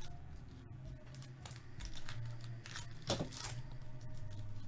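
Foil wrapper of a baseball card pack crinkling in a run of short rustles as it is handled and opened, over a low steady hum.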